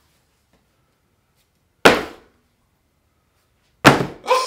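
Two sharp, loud thuds about two seconds apart, each dying away within half a second, in otherwise dead silence: cardboard mailing boxes landing on a wooden desk. Right at the end a falling, voice-like sound begins.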